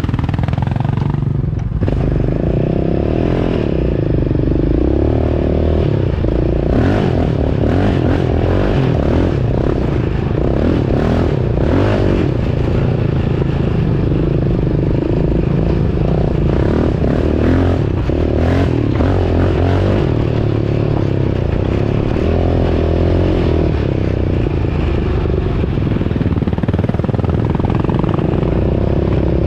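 ATV engine running steadily while riding, with scattered rattles and knocks from the machine over rough ground through the middle stretch.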